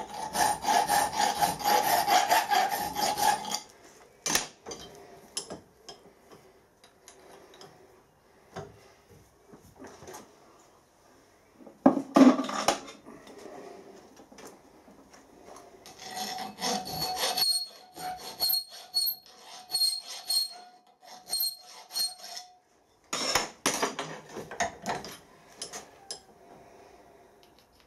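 Hand file rasping across the edge of a plasma-cut metal plate clamped in a bench vise, metal on metal, in several runs of strokes about two a second with a steady ringing tone from the plate. A single loud knock comes about midway.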